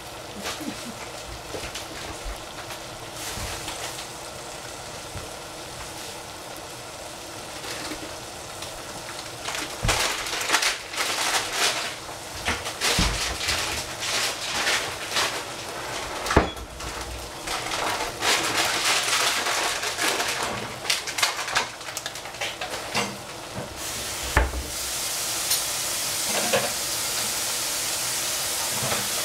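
Shrimp and capsicum sizzling in a saucepan. Irregular knocks and clatter come through the middle. About three quarters of the way in, a water tap starts running steadily.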